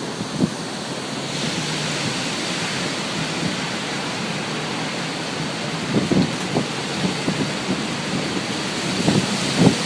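Storm wind and rain making a steady hiss, with gusts of wind buffeting the microphone about six seconds in and again near the end.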